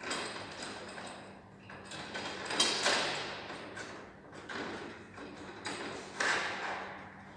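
Handling noise from work at a ceiling vent done from an aluminium stepladder: a series of rasping, scraping strokes, each starting suddenly and fading. The loudest comes about two and a half seconds in, and another near the end.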